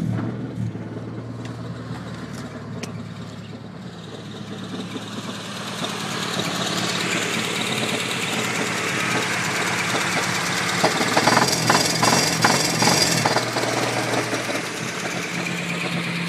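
1994 Honda Accord EX's F22B1 2.2-litre four-cylinder engine idling roughly with a knock, a fault that persists after new plug wires, plugs, distributor cap and rotor. The sound grows louder and noisier through the middle, with a run of sharp knocks about two-thirds of the way in.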